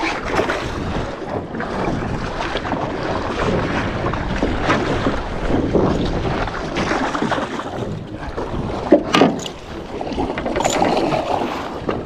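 Wind on the microphone and water sloshing against a small skiff's hull, a steady rushing noise, with one sharp knock about nine seconds in.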